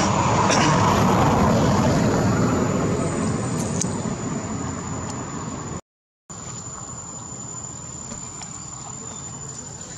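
Outdoor ambience: insects buzzing in a steady high drone over a broad even noise. The noise is louder for the first few seconds, then fades. The sound cuts out completely for about half a second around six seconds in and resumes more quietly.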